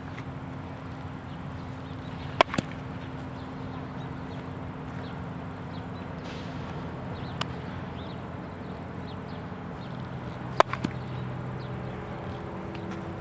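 Two sharp cracks of a baseball bat hitting ground balls, about eight seconds apart, each followed quickly by a smaller knock, with a fainter knock between them. A steady high insect drone runs underneath.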